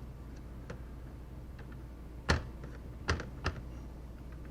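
Small sharp clicks and taps of a screwdriver and parts being handled inside an open laptop's chassis: a few faint ticks, then three sharper clicks between about two and three and a half seconds in.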